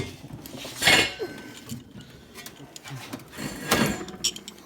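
Metal hand tools clinking and knocking as they are handled, with a couple of louder clatters and a few light clicks.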